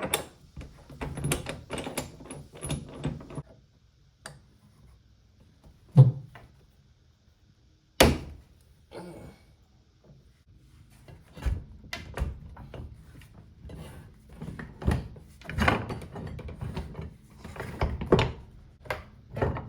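Clicks, knocks and thunks of tools and motorcycle parts being handled during disassembly. A cluster of clicks comes at the start, then two sharp single knocks about six and eight seconds in, a quiet stretch, and a busier run of knocking and clicking through the second half.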